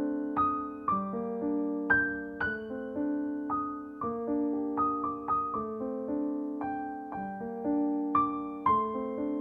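Background music: a gentle piano melody, its notes struck about twice a second and left to ring and fade over a sustained lower chord.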